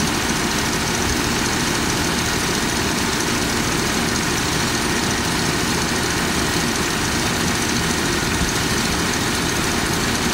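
Car engine idling steadily while its ignition timing is checked with a timing light.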